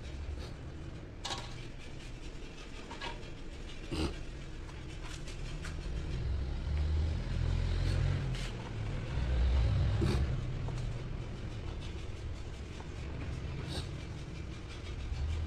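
Tin snips cutting a cork-sheet gasket strip for a transformer tank's oil seal, giving a handful of sharp clicks at irregular intervals. A steady low rumble, louder in the middle, runs underneath.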